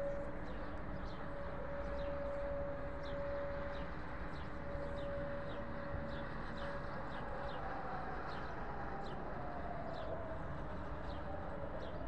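Distant civil defence siren sounding over a city. It holds one steady tone for about six seconds, then comes back higher and wavering. Small birds chirp many times throughout.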